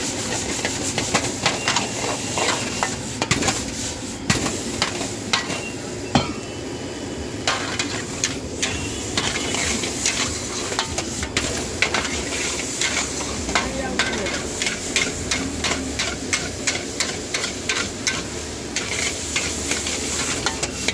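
Metal spatula clanking and scraping against a wok in quick, irregular strokes as chicken fried rice is stir-fried, with the rice sizzling steadily underneath.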